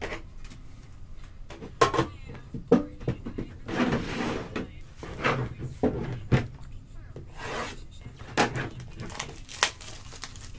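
Cardboard trading-card box handled and slid on a tabletop: rubbing and scraping of cardboard, broken by several sharp knocks and taps.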